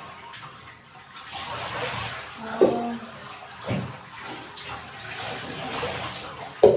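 Water splashing and running in a bathtub as a puppy is bathed, with a few brief louder sounds and a sudden loud one near the end.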